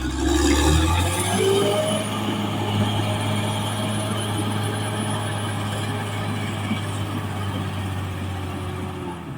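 Caterpillar D6R XL bulldozer's diesel engine running steadily under work, with a brief rising whine in the first couple of seconds.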